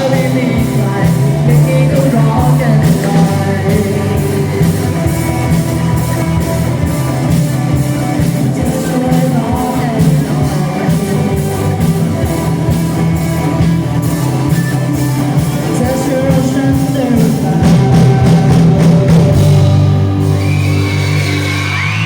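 A live band playing a rock-pop song, with sustained chords over a steady drum beat and some singing.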